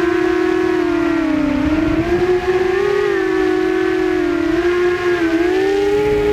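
Quadcopter's electric motors and propellers whining, heard from the drone's own camera: several close pitched tones that dip and rise together as the throttle changes. A low wind rumble on the microphone swells about two seconds in.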